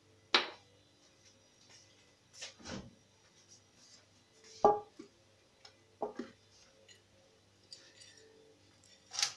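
A few separate clinks and knocks of kitchenware being picked up and set down on a countertop, the loudest about halfway through with a short ring. Near the end, a zucchini starts rasping in quick strokes over a metal box grater.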